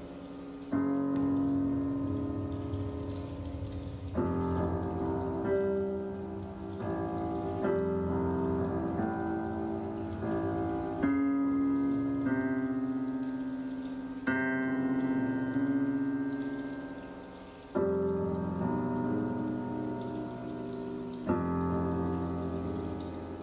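Music of slow piano chords, each struck and left to ring and fade before the next comes in a few seconds later.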